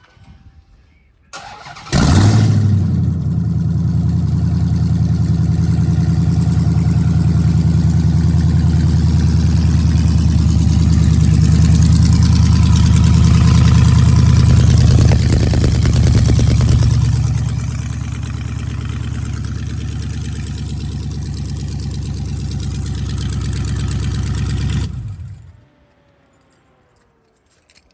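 A Dodge Hellcat's supercharged 6.2-litre Hemi V8 cranks briefly and starts with its catalytic converters removed, its exhaust dumping straight out at the headers. It runs at a loud, steady high idle, settles to a quieter idle about 17 seconds in, and is shut off near the end.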